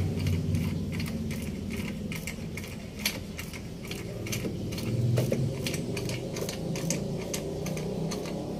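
Quick metallic clicks and clinks of a hand tool working the bolts of an aftermarket exhaust pipe's mounting under a scooter, several a second and unevenly spaced.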